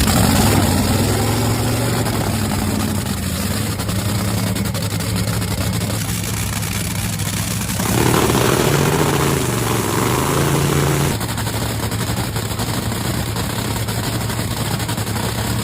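Top fuel dragster's supercharged V8 cackling at idle on nitromethane, an uneven popping and crackling from the fuel's rough burning in the cylinders. It gets louder for about three seconds a little past halfway.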